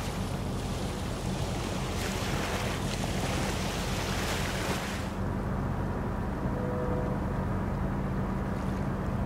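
Tugboat diesel engines running with a steady low hum. Wind buffets the microphone for the first five seconds, then drops away. A brief faint pair of steady tones sounds about six and a half seconds in.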